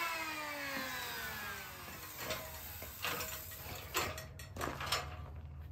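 Corded electric hand planer spinning down after being switched off, its whine falling steadily in pitch over the first two seconds. Then a few separate knocks from the aluminium extension ladder as it is climbed down and handled.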